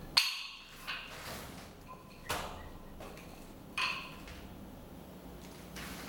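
Nunchaku being swung, struck and caught: a few sharp clacks, the loudest about a fifth of a second in, others about a second, two and a half and four seconds in, and a faint one near the end.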